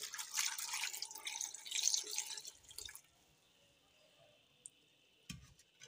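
Milk poured in a stream into a pressure cooker pot of chopped carrots, splashing and trickling for about three seconds and then stopping. A short knock near the end.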